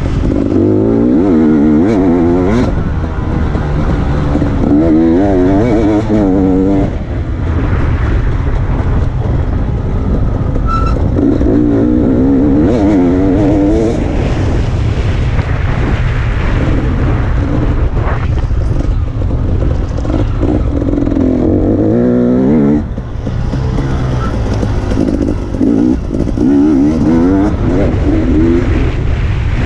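Off-road dirt bike engine under hard riding, its revs repeatedly climbing and dropping as the rider accelerates and shifts. The throttle is briefly closed about a quarter of the way in and again about three-quarters through.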